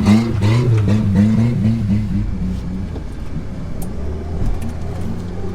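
Off-road vehicle engine revving up and down in quick repeated surges, about three a second, then settling to a steadier lower run about two seconds in.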